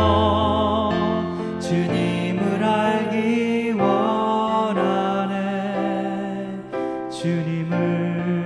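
Slow Korean worship song: a singing voice with vibrato over instrumental accompaniment, with a low bass note held near the start.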